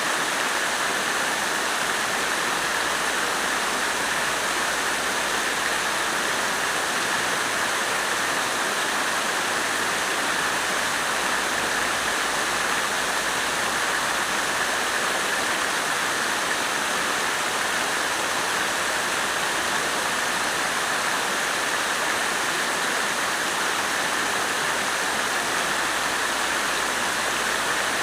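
Water fountain splashing steadily: an even, unbroken rush of falling water.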